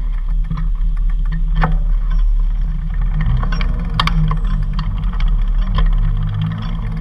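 A motor vehicle engine running steadily with a low hum, with a sharp click about four seconds in.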